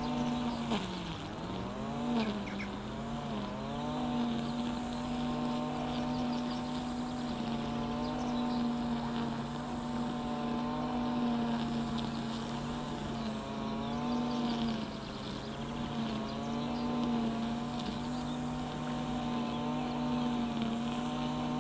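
A motor engine running steadily, its pitch dipping and wavering in the first few seconds and then holding level with small wobbles.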